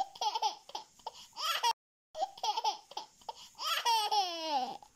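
A baby laughing and squealing in short high-pitched laughs, broken by a brief moment of silence about two seconds in, and ending in one long squeal that falls in pitch.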